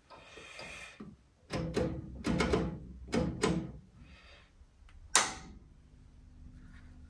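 Rotary switches and knobs on a Neuberger valve tester being turned by hand, clicking through their positions while it is set up to test an EF804 pentode. A short rustle comes first, then a run of clicks, and one sharp, loudest click about five seconds in.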